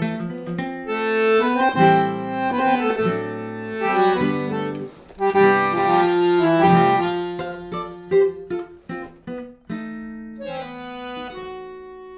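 A bandoneón and guitar duo playing a tango: held bandoneón chords and melody over plucked guitar notes, thinning to shorter, separate notes near the end.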